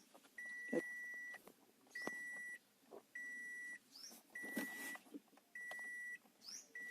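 A car's in-cabin warning chime beeping a single steady high tone over and over, about six beeps roughly a second apart. A few faint plastic clicks come between them as a bulb socket is worked into the gear-shift indicator housing.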